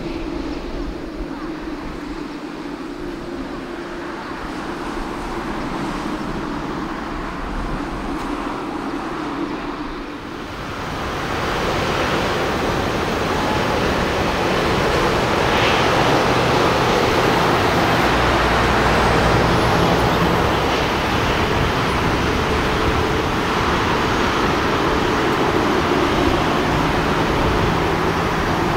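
Jet airliner engines at takeoff power: a steady hum with a held tone for the first ten seconds or so, then the roar quickly swells louder and stays loud.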